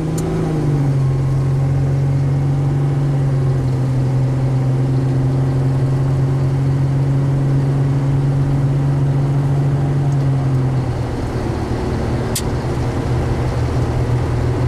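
2001 Ford Ranger's 4.0-litre V6 pulling the truck on the road; its note drops about half a second in as it shifts up, then holds steady. About two-thirds through it eases off as the throttle lifts, and a single sharp click comes near the end. The owner thinks the engine has noisy lifters.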